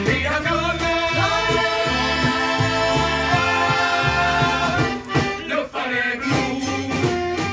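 Live song from a small band with singers: a steady bass line keeps time under the voices, which hold one long sustained note through the middle before the phrase moves on.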